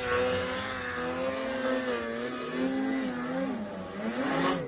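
Snowmobile engine revving hard in deep powder, its pitch rising and dipping over and over as the throttle is worked.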